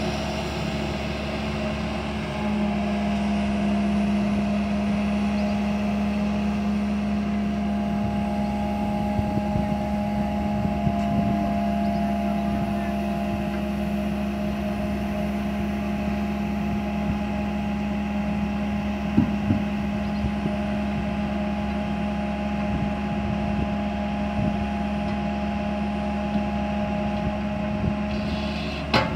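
Komatsu PC160LC hydraulic excavator's diesel engine running steadily under load with a steady low hum while the boom lowers a concrete pipe into a trench. A couple of sharp knocks come about two-thirds of the way through.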